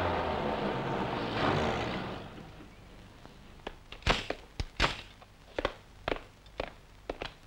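A car engine running, fading out about two seconds in, followed by footsteps of several people walking: sharp, irregular steps, the loudest two near the middle.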